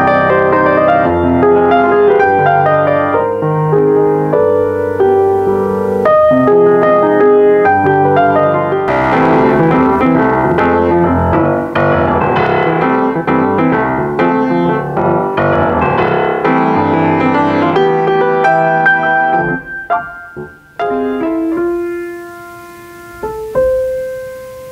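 Grand piano being played: a flowing piece with many notes at once, thinning out about twenty seconds in to a few soft, held notes.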